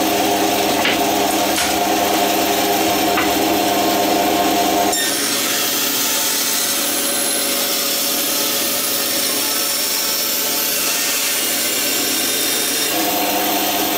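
Bandsaw running and cutting a piece of wood: a steady motor hum with the hiss of the blade, the hum dropping back about five seconds in while the blade is in the wood and coming back near the end.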